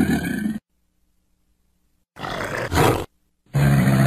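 Deep animal roar sound effect: a low roar that cuts off about half a second in, a shorter, rougher growl around two to three seconds, then another long low roar from about three and a half seconds.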